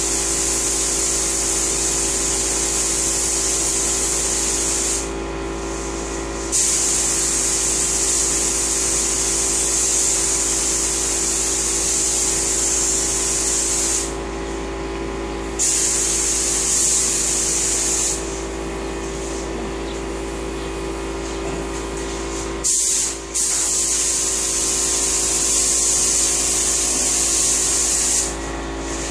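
Spray gun spraying a clear topcoat of finish onto wooden cabinets. It hisses steadily in long passes, breaking off briefly several times between passes, over a steady machine hum.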